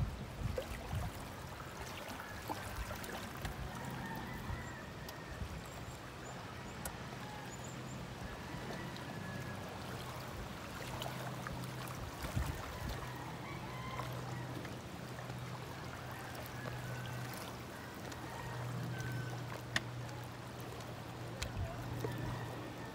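Shallow lake water lapping and trickling around a boat hull and wading legs, under a steady low hum, with a few light knocks and clicks from hands working on a small outboard motor at the stern.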